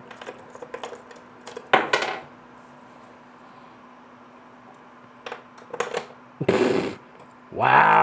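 Small metal clinks and clicks of the tiny cans in a miniature 1:6 scale Coca-Cola vending machine being handled and loaded, with one ringing clink about two seconds in. More light clicks and a short rattle follow near the end.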